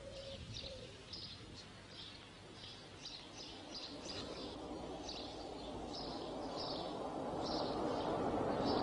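Small birds chirping in a run of short, high chirps, about two a second. A low rushing noise grows steadily louder through the second half.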